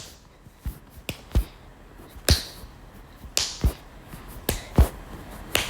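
A series of about ten irregular clicks and soft knocks, some with a dull low thump, coming roughly two a second at uneven spacing.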